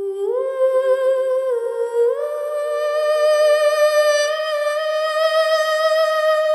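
Background music: a single melody line of long held notes with a slight vibrato, stepping up in pitch and settling on one long note about two seconds in.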